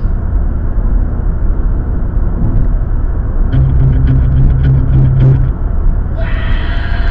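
Steady road and engine rumble of a moving car, heard from inside the cabin. A steady low hum joins for about two seconds in the middle, and a sound made of several steady tones starts near the end.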